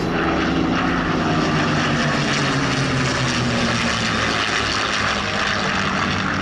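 Radial-engine propeller warbird passing low, its engine note falling in pitch over the first few seconds as it goes by, then running steady.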